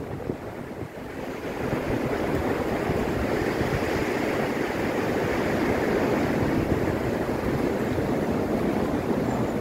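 Wind rushing steadily through tall trees, with a low rumble of wind on the microphone. It is a little softer for the first second, then holds steady.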